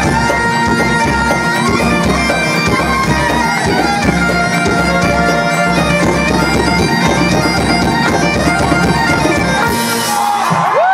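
Irish traditional band playing a tune together live: fiddles and button accordions carry the melody over strummed acoustic guitars, bodhrán and drum kit, with a steady drum pulse underneath.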